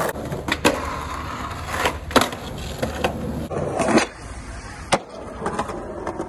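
Skateboard wheels rolling with a steady rumble, broken by several sharp clacks of the board hitting the ground.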